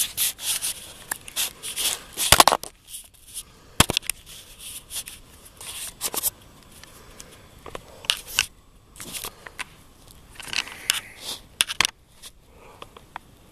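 Footsteps crunching through deep snow, with twigs and brush scraping and crackling past, in an irregular run of crunches. A couple of sharper, louder cracks come about two and a half and four seconds in.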